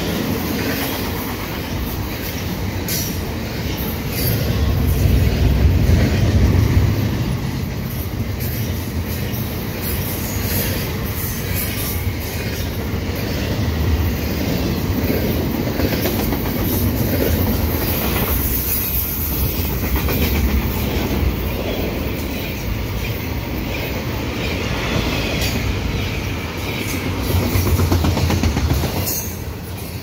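Double-stack container well cars of a fast CP intermodal freight train passing close by on a tight curve. The steel wheels keep up a steady rumble on the rails, swelling loudest about five seconds in, with clicks over the rail joints and wheel squeal from the bend.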